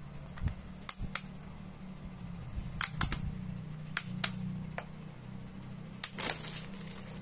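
Small plastic rocker switches on a multi-outlet extension cord being clicked, about nine or ten sharp clicks, some in quick pairs and triples, with a short cluster of clicks and plastic handling near the end. A steady low hum runs underneath.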